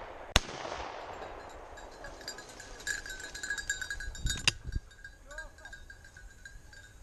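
A single shotgun shot about half a second in, its report echoing away over the next second or so. After that, a dog's bell jingles faintly, with a sharp click about four and a half seconds in.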